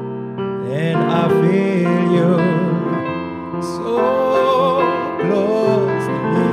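A male singer singing long, sliding notes with vibrato over grand piano accompaniment in a slow soul-jazz ballad.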